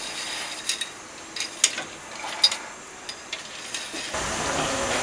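Metal utensil clinking and scraping against an aluminium pot as pasta is stirred, a few sharp clinks. About four seconds in, a steady rushing noise with a low rumble begins.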